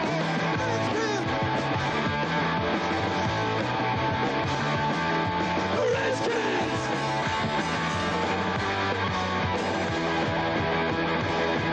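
Rock band music with electric guitars to the fore, mostly instrumental, at a steady level.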